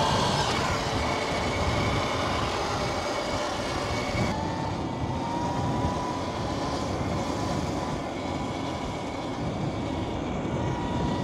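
An electric dirt bike being ridden: a steady motor whine over rushing wind noise, with the whine's pitch shifting and the hiss growing duller about four seconds in.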